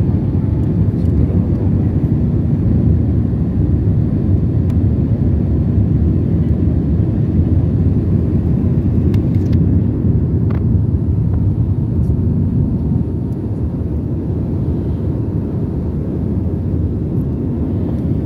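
Steady low roar inside the cabin of an Airbus A320 jet airliner climbing after take-off: engine and airflow noise heard through the fuselage. It eases a little about thirteen seconds in.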